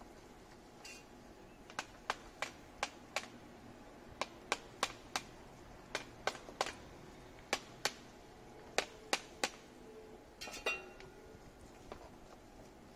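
Sharp knocks on the base of an upside-down plant pot, struck with a small hand tool in quick runs of two to five, to loosen the root ball so the plant slides out for repotting. A short scraping rattle comes about ten and a half seconds in.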